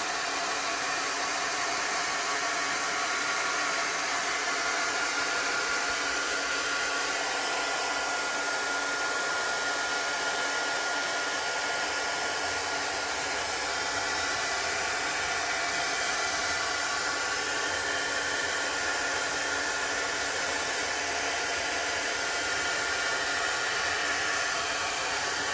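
A handheld hot-air dryer running steadily, blowing on freshly applied transfer ink to dry it before heat-setting.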